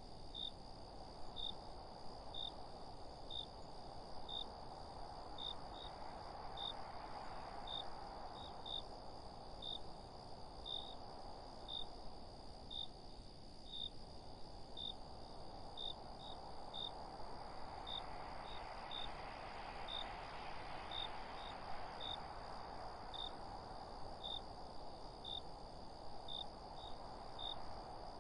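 Crickets chirping in short high chirps about once a second, some in pairs, over a steady high insect trill. Beneath them a soft rustle of wind through leaves swells twice.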